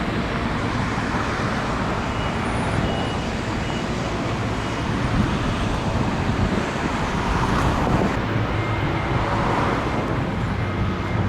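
Steady road traffic passing by, with a couple of vehicles swelling louder in the second half.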